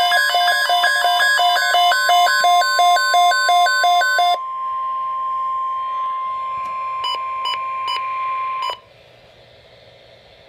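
NOAA Weather Radio 1050 Hz alert tone, a steady electronic tone, with a rapid two-tone electronic beeping alarm sounding over it for the first four seconds. The tone carries on more quietly, a few short beeps sound near its end, and it cuts off suddenly about two-thirds of the way through, leaving faint radio hiss.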